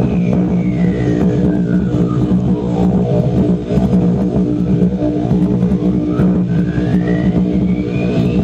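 Unidentified strong humming signal received on a shortwave radio: a steady multi-tone drone, likened to a fleet of WWII propeller bombers. A thin whistle glides down over the first few seconds, then rises again near the end.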